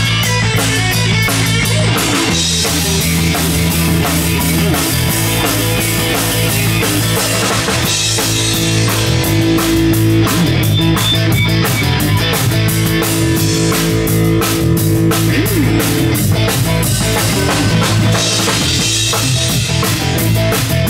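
Live rock band playing an instrumental passage on drum kit and electric guitars, with no vocals. Long held notes come in near the middle, the second run ending in bends in pitch.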